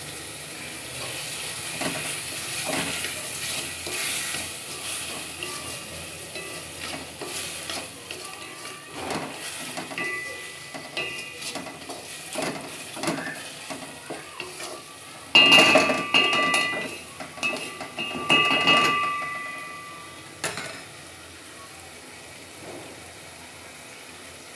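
Chopped tomatoes frying and sizzling in a metal pot while being stirred, the spoon scraping the pot in short strokes. About two-thirds of the way in, two louder scrapes make the pot ring; near the end the stirring stops and only a quieter sizzle remains.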